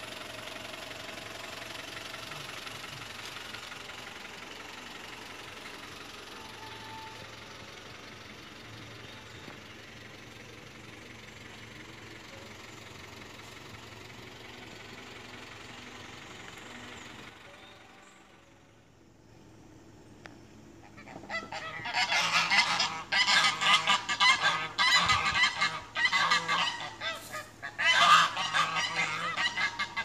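Steady background hiss, then from about two-thirds of the way through a group of domestic geese honking loudly and repeatedly.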